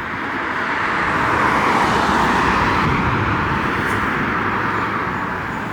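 A car driving on a road: a low rumble with a broad tyre hiss that swells over the first couple of seconds and slowly eases off.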